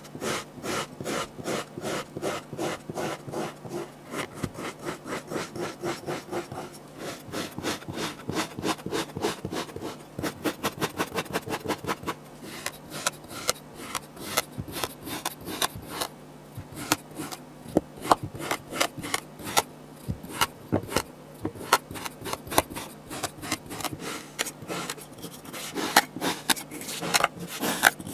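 Kinetic sand being cut and scraped: a long run of short, gritty strokes, about three a second, some louder than others.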